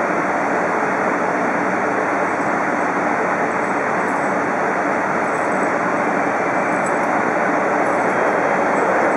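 E5 series Shinkansen train moving slowly along a station platform: a steady rumble of wheels and running gear, growing slightly louder as it draws nearer.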